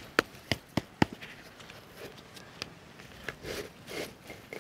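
Concrete blocks knocking together as a block is set onto a stacked-block wall: a quick run of sharp knocks, about four a second, in the first second, then fainter scrapes and shuffles.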